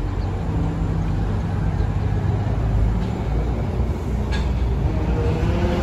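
Hybrid transit bus running, a steady low rumble with a motor hum whose pitch rises near the end. A single sharp click about four seconds in.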